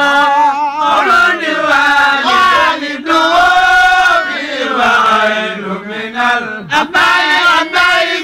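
A man chanting a religious song in Arabic, with long held notes that bend and waver, broken by a few short breaths.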